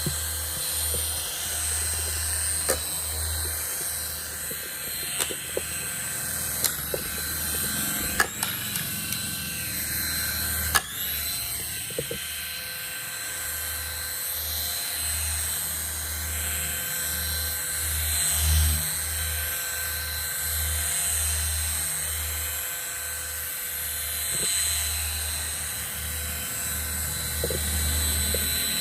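A small aircraft's motor whining steadily at a high pitch in flight, with wind buffeting the microphone and a few sharp clicks.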